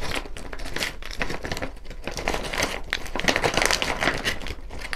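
Thin plastic bag crinkling and rustling as kerupuk crackers are pulled out of it by hand, an irregular crackle without pause.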